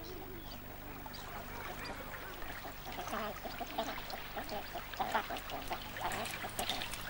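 Spectacled eiders calling with rising-and-falling calls, then from about three seconds in a busy patter of dripping and trickling meltwater from thawing ice.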